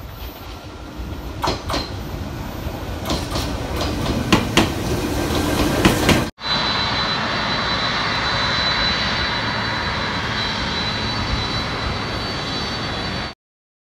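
An electric commuter train runs past, growing louder, with sharp clacks from its wheels over the rail joints, and is cut off about six seconds in. Then a twin-engine jet airliner taxis, its engines giving a steady rushing noise with a thin high whine, which stops abruptly near the end.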